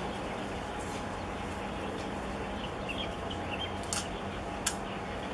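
Steady background rush with a low, even hum, a few faint chirps about three seconds in, and two sharp clicks near the end.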